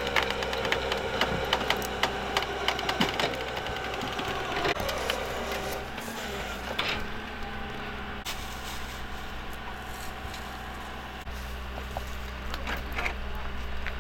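A vehicle engine idling steadily, with scattered sharp clicks and rattles over the first few seconds.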